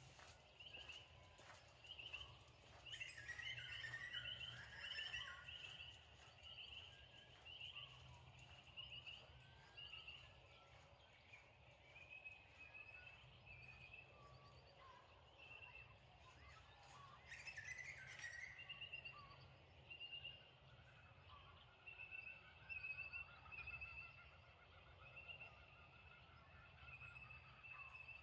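Faint birdsong: several small birds chirping and trilling, one high chirp repeated about twice a second, with busier flurries of calls near the start and about two-thirds through, over a low steady hum.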